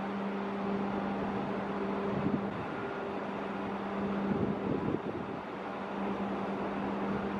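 Outdoor waterside ambience: a steady hiss of wind, with gusts buffeting the microphone, and a steady low machine hum that drops out briefly twice.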